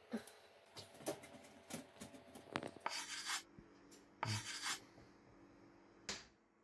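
Welded steel wire mesh being handled and fitted: scattered light clicks and taps of wire on wire, with two short scraping rubs about three and four seconds in.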